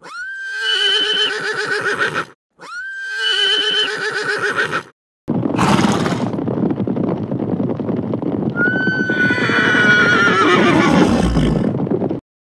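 Horse whinnying twice, each call about two seconds long, starting high and trembling as it falls away. Then the hoofbeats of a small herd of horses running, with a third whinny over them in the middle, before the sound cuts off suddenly near the end.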